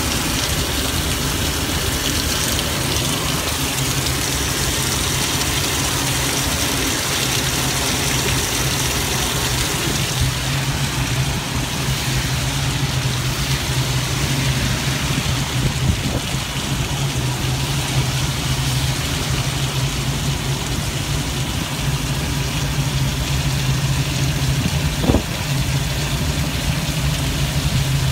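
ELF pedal-electric velomobile running on a wet road in the rain: a steady hiss of tyre spray and rain on the shell, heard from inside the body, with a steady low hum from its electric drive under power that firms up a few seconds in. One brief knock near the end.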